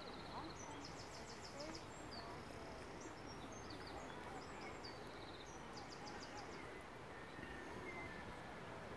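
Small songbirds chirping and trilling high and faint over a steady outdoor rustle, with rapid trills about a second in and again about six seconds in.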